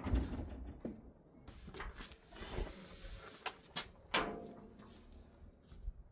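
A few scattered knocks and clicks of parts and tools being handled during work, the loudest about four seconds in.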